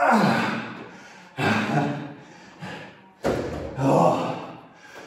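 A man breathing hard from exertion, with loud, heavy exhales about every second and a half, straining through the final reps of an intense leg workout.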